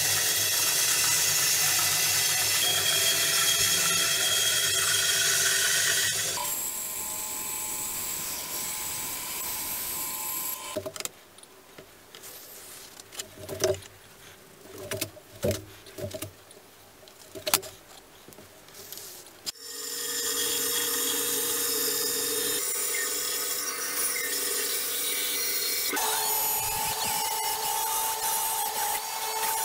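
A band saw running and cutting a walnut board. After several seconds it gives way to a quiet stretch of scattered clicks and knocks from boards and a tape measure being handled. Near the end a table saw runs steadily.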